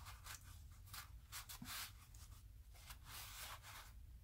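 Faint rubbing strokes of a gloved hand wiping with a paper shop towel inside an air compressor's metal electrical box, about two strokes a second, cleaning out leaked capacitor goo.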